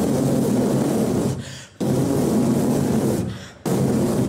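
A man's rough, breathy vocal noise made into a microphone, a comic imitation of the horse running, in three surges about two seconds apart, each cutting in suddenly and fading.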